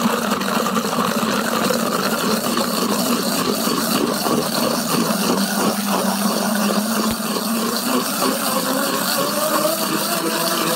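Countertop blender running at full speed, grinding soaked almonds with water into almond milk: a loud, steady motor noise whose pitch creeps up slightly near the end.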